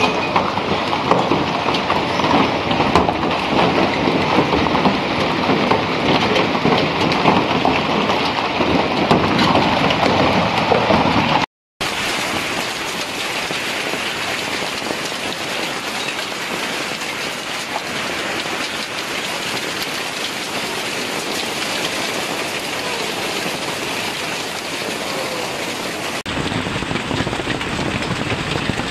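Hailstorm: hailstones falling thickly onto pavement and other hard surfaces in a dense, steady patter like heavy rain. The sound drops out for a moment about a third of the way in and changes character twice where separate recordings are joined.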